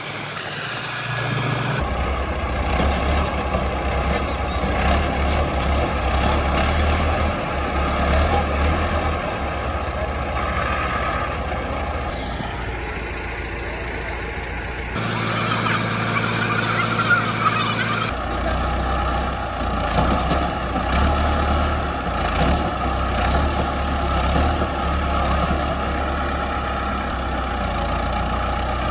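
Tractor engines running steadily with a deep rumble, changing abruptly a couple of times as clips are cut together.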